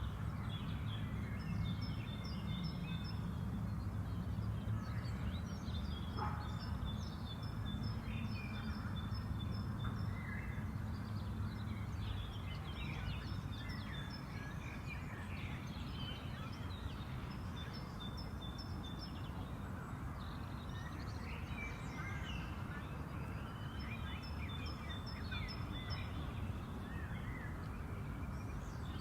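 Park ambience: several songbirds chirping and trilling in short repeated phrases over a steady low background rumble.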